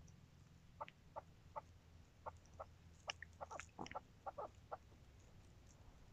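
A young chukar partridge calling: a run of short clucking notes, about a dozen over four seconds, coming faster and bunching together in the middle, over a faint low hum.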